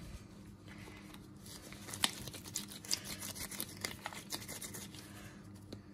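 Gloved hands kneading and shaping a stiff paste of crushed chalk: faint rustling with scattered small clicks and ticks, the sharpest about two seconds in.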